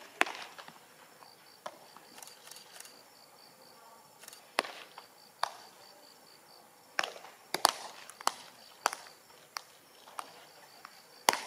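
Baseballs smacking into leather gloves during a game of catch: a string of sharp, separate pops, some close and some farther off, the loudest about a quarter second in, near the middle and near the end. Underneath, an insect chirps in a steady fast pulse.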